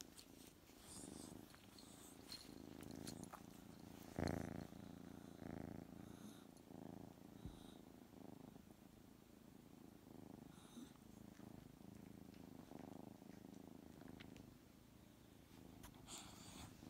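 Cat purring close to the microphone, a low rumble that swells and eases with each breath, louder for a moment about four seconds in.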